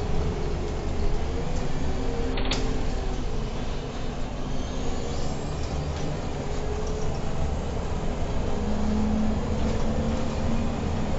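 Irisbus Crossway LE 12M bus on the move, its engine and road noise heard from the driver's cab, with the engine note shifting and rising slightly near the end. A brief click about two and a half seconds in.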